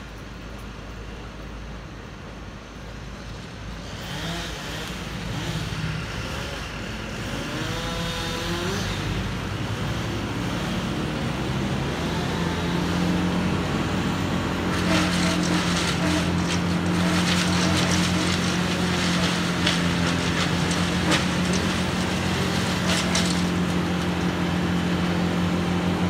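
Heavy diesel engine of a truck-mounted crane running, growing louder and higher in speed over the first dozen seconds as it takes up load, then holding steady. Short crackling noises come in the second half.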